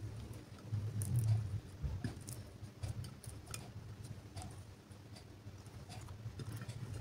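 Clear slime loaded with glitter and lipstick being kneaded and pressed by hand against a glass dish, giving irregular small sticky clicks and pops.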